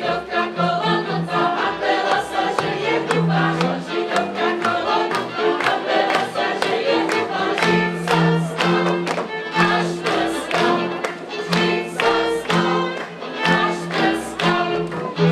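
Slovak folk music played live, with a group of voices singing over a steady bass line and quick, even rhythmic strokes.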